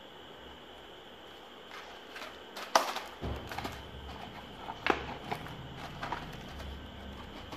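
Cardboard fireworks box with a clear plastic window being handled and pressed shut: a string of sharp taps and plastic crinkles, the two loudest about three and five seconds in.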